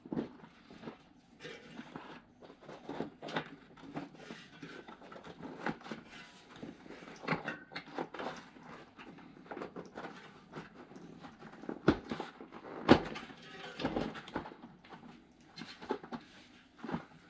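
Tubeless mountain bike tyre being worked onto its rim by hand: rubber rubbing on the rim with irregular knocks and clicks of the wheel, the sharpest knock about thirteen seconds in.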